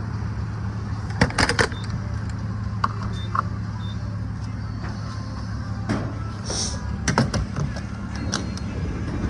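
Inside a Lexus GS sedan while it is being driven: steady engine and road hum, with a few sharp clicks and knocks about a second in and again near the end, and a brief hiss partway through.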